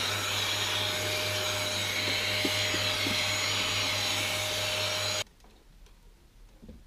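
Vacuum cleaner running steadily, its nozzle worked over the top of a kitchen extractor hood, then switched off abruptly about five seconds in. A few faint handling knocks follow.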